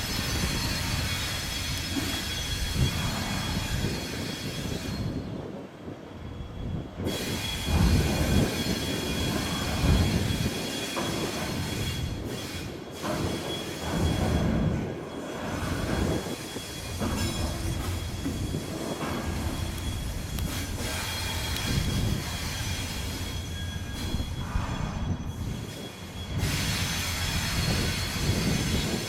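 Railway coaches rolling slowly over the track with the wheels squealing steadily on curved rails, over a low rumble.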